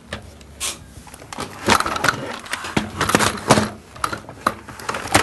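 Plastic clicks and knocks as the cleaner head is pushed back onto a Dyson DC25 upright vacuum and snapped into place, in two clusters around the middle.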